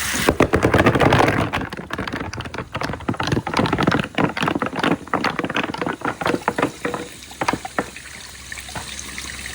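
Water released down a water marble run, rushing loudly at first and then easing, with marbles clicking and knocking along the track as they are carried down.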